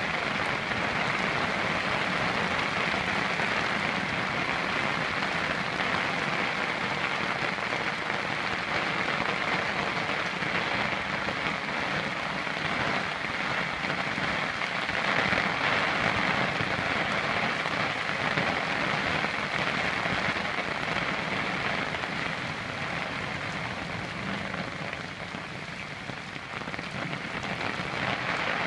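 Heavy rain falling steadily on trees, rocks and muddy ground, a constant hiss that eases slightly near the end.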